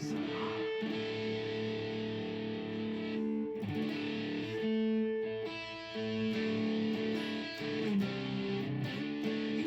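Electric guitar playing held chords, each ringing for one to two seconds before the next.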